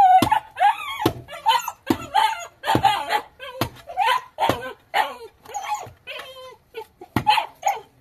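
A pick striking the earth about once a second, each blow a sharp thud, over a dog's continual high whimpering and yipping.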